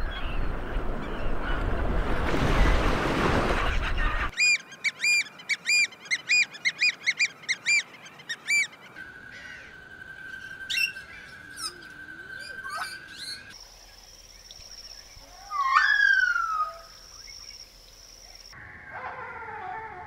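Bird calls from several different birds, cut one after another. It opens with about four seconds of loud rushing noise, then a quick run of evenly repeated chirping calls, then a steady high whistle with a few sharp calls, then a short series of downward-slurred calls.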